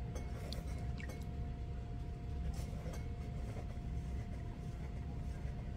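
Electric pottery wheel running at speed: a steady low hum with a thin, steady whine above it. A few faint clicks sound in the first three seconds as the potter's hands go back onto the wet clay cylinder for another pull.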